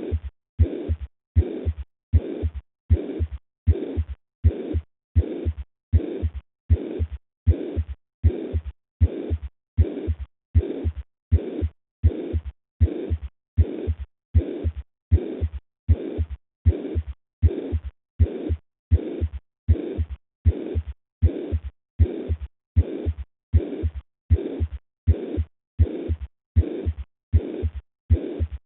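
Recorded heart sounds with a murmur, beating evenly at a little over one beat a second. Each beat is a low thump followed by a drawn-out whooshing murmur, with only a short quiet gap before the next beat.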